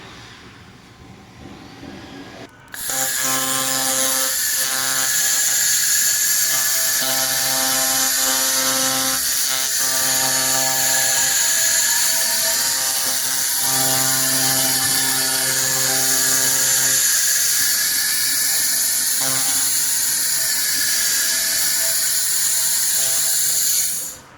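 RelFar handheld fiber laser welding machine working on steel: a loud steady hiss with a wavering whine, under a buzzing hum that breaks off and returns several times. It starts suddenly about three seconds in and cuts off near the end.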